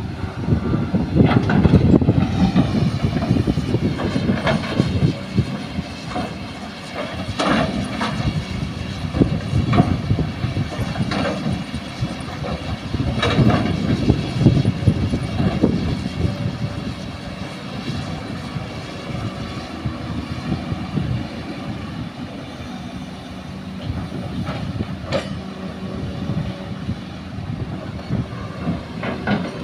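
Hydraulic excavator's diesel engine running and revving up and down as it digs and loads soil and rock into a dump truck. Several sharp knocks through the swings: the bucket and falling rock striking the truck's steel bed.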